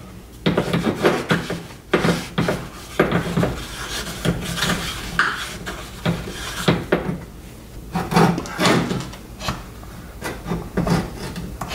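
Parts of a Treadle-Vac power brake unit being worked apart by hand on a workbench: irregular scraping, rubbing and knocking of metal parts, with no steady rhythm.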